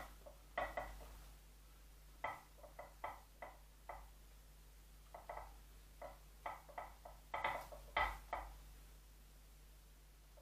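Hands wrapping and bending bonsai wire on a small fig branch: scattered light clicks and scrapes in short clusters, falling quiet near the end.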